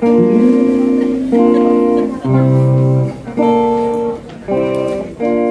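Guitar playing a run of about six chords, each struck and held for about a second with short gaps between, with a slide up in pitch at the start of the first.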